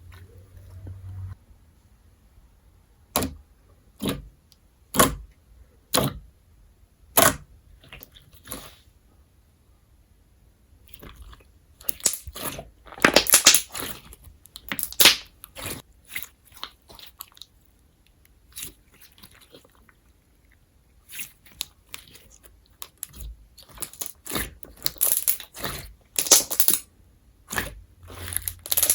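Glossy glue slime being pressed and stretched by hand: five sharp pops about a second apart, then runs of crackling and snapping.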